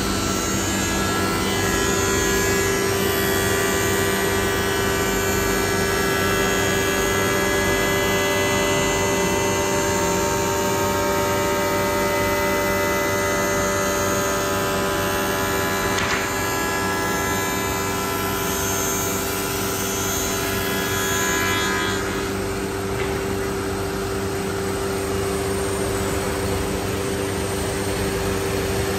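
CNC wood router's HSD spindle running at speed, its C-axis aggregate saw blade cutting wooden door parts: a steady mechanical whine made of several held tones, the strongest one low. About three-quarters of the way through, the higher tones drop away and it gets slightly quieter.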